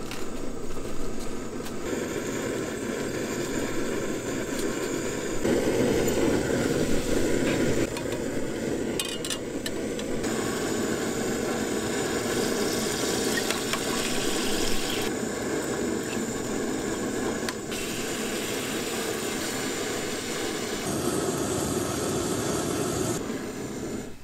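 Camping gas stove burner running with a steady low rush under a pot, with some clatter of cooking utensils. The sound changes abruptly several times.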